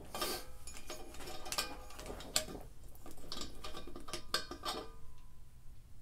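Scattered light metallic clinks and scrapes as a propane hose's threaded fitting is handled and turned against a propane tank's valve.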